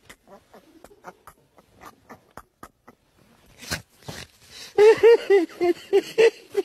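A man's uncontrollable laughter breaks out about five seconds in, in loud, rapid rhythmic bursts of about four a second. Before it there are only a few faint clicks.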